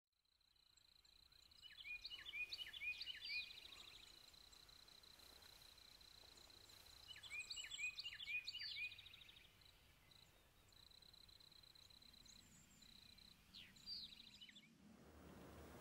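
Faint woodland ambience: a songbird sings a short phrase of quick falling notes that ends in a rapid trill, twice, then a shorter phrase near the end, over a steady high-pitched whine.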